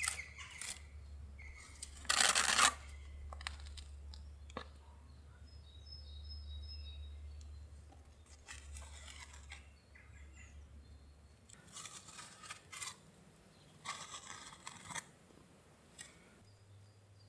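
Metal putty knife scraping epoxy filler along a joint in stone paving, in a series of short scrapes, the loudest a little over two seconds in. A low hum runs underneath for about the first two-thirds.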